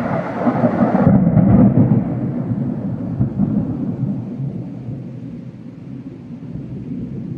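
Thunder rumbling after a nearby lightning strike. It is loudest in the first two seconds, then slowly dies away.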